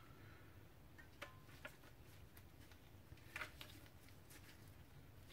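Near silence, broken by a few faint light clicks and taps about a second in, again shortly after, and a small cluster past the middle: metal parts of a CVT valve body and its separator plate being handled and set in place.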